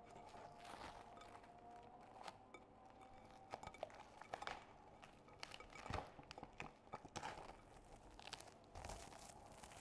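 Faint crinkling and crackling of plastic cling film being peeled off a glass bowl, in scattered short rustles and clicks.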